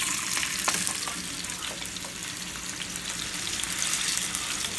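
A thin slice of seasoned beef sizzling in hot oil in a nonstick frying pan: a steady hiss with scattered small crackles, easing slightly over the seconds.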